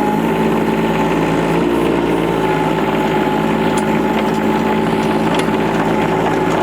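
Kubota U10-5 mini excavator's small three-cylinder diesel engine running steadily, with a constant high whine above the engine note while the machine is turned around to bring its blade toward the trench.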